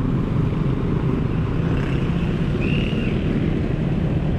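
Busy street traffic: motorcycles and motorcycle tricycles running and passing close by, a steady low engine rumble. A short high-pitched tone sounds about two and a half seconds in.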